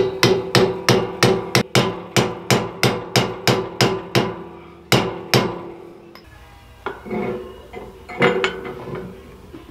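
Hammer striking a bushing driver to tap a bronze bushing into a trailer leaf-spring eye: a quick, even run of sharp metal-on-metal blows, about three a second, for the first four seconds. Two more blows follow a second later, then a few lighter, scattered knocks.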